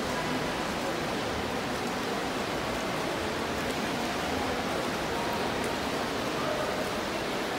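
Steady splashing of several swimmers doing front crawl in an indoor pool hall, heard as a continuous watery wash.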